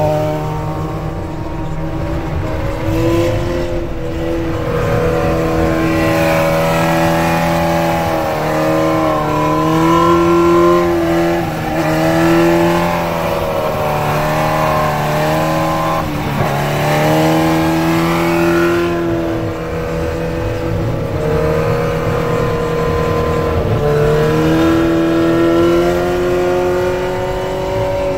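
Sport-bike engine revving during a wheelie, its pitch rising and falling over a few seconds at a time with the throttle and dipping sharply and recovering once about halfway through, with road and wind noise underneath.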